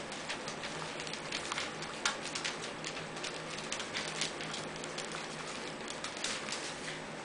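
Havanese puppies scrabbling about on newspaper: irregular rustling and crinkling of paper with small clicks and taps, a few sharper crackles among them.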